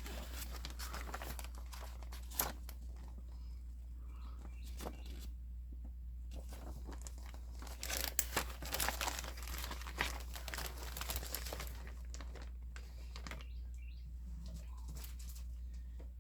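Packaging crinkling and rustling as it is handled, in scattered bursts that are busiest about halfway through, over a steady low hum.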